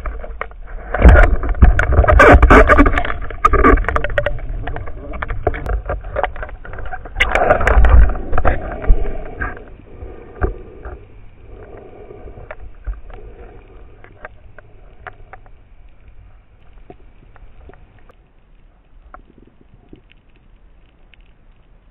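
Water noise and handling sounds through an underwater camera housing as a speared fish is hauled in and gripped: rushing water with many knocks and clicks, busiest for the first nine seconds, then fading to faint scattered clicks.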